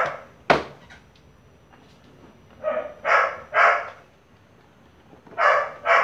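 A dog barking, agitated: short barks in groups of two or three, about six in all. A single sharp knock about half a second in.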